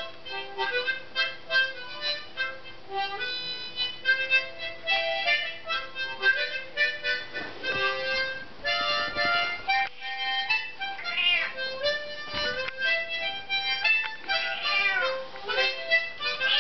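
Harmonica played in short, changing notes and chords, with a domestic cat meowing along in rising-and-falling calls a couple of times in the second half.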